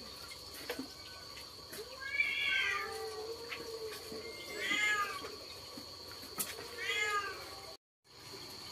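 Pig-tailed macaque calling three times, about two and a half seconds apart: each call drawn out for half a second or more, rising then falling in pitch, over a faint steady high whine.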